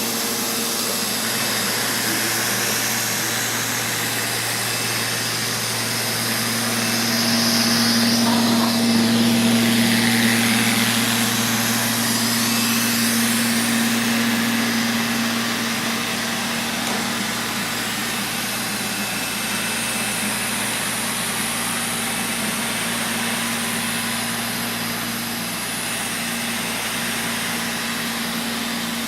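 Neato XV-12 robot vacuum running as it cleans: a steady motor hum with a rushing suction hiss, louder for several seconds midway.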